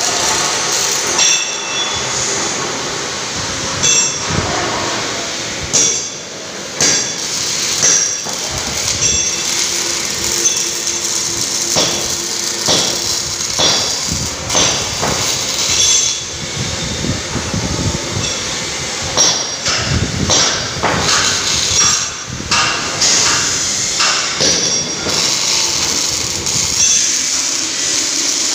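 Metal being struck with a hammer: irregular ringing clangs every second or two, over steady workshop background noise.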